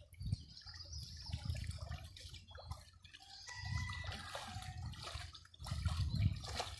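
Shallow river water sloshing and splashing irregularly as a person wades and sweeps his hands through it. The sloshing is loudest about six seconds in.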